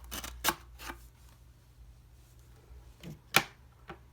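X-Acto knife cutting into packaging, a few short scraping, crackling strokes with the loudest about three seconds in.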